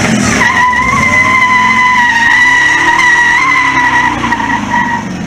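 Ford SVT Lightning pickup doing a burnout: its rear tyres squeal in one long, steady tone while the supercharged 5.4-litre V8 revs beneath. The squeal fades out near the end.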